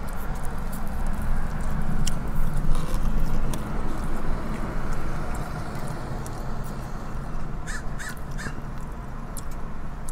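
Steady low rumble of a vehicle idling, heard from inside, with small clicks and crinkles of eating. About eight seconds in, three short bird calls come in quick succession.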